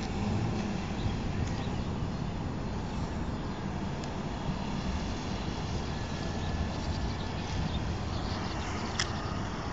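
Kawasaki Ninja 250 parallel-twin motorcycle engine running as it is ridden around, under a steady low rumble of wind on the microphone. One short sharp click about nine seconds in.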